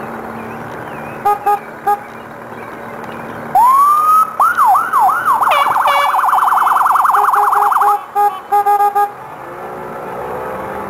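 Police boat's electronic siren. It gives a few short electronic blasts, then a rising whoop. A handful of slow rising-and-falling wails follow and speed up into a fast warbling yelp for a couple of seconds, then more short blasts.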